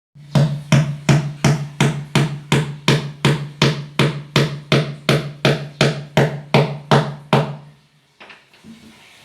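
Steady hammering during apartment repair work: about twenty heavy blows at roughly three a second over a low hum that lasts as long as the blows, stopping about seven and a half seconds in.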